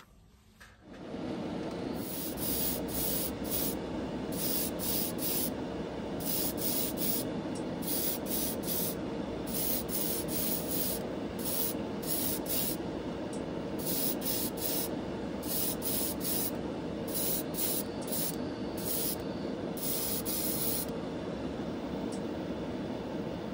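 Airbrush spraying paint onto die-cast toy wheel hubs in repeated short bursts of hiss, over the steady running of a spray booth fan. The spraying stops about two seconds before the end.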